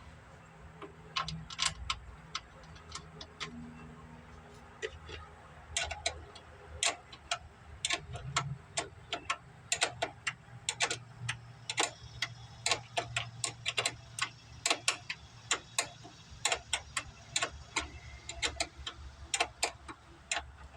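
Ratchet wrench clicking in short irregular runs as bolts are turned with a 3/8 socket.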